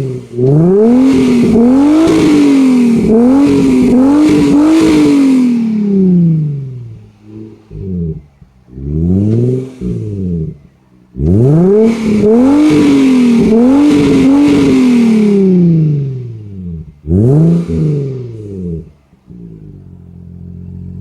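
Nissan V35 Skyline's V6 engine revved through a large-bore Fujitsubo Legalis exhaust, loud: several quick throttle blips in a row, a pause with a smaller rev, another run of blips, then one last blip before it settles back to a steady idle near the end.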